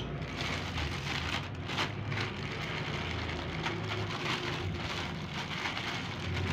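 Thin plastic ice bag crinkling and rustling as it is picked up and squeezed by hand, with crushed egg noodles wetted with hot water inside. A steady low hum runs underneath.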